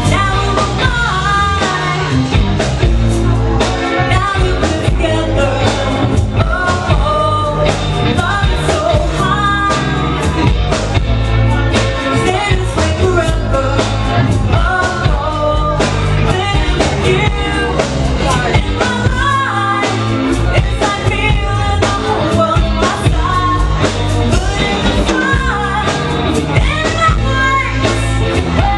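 Live band playing: a woman singing lead into a microphone over electric guitar, bass and a drum kit.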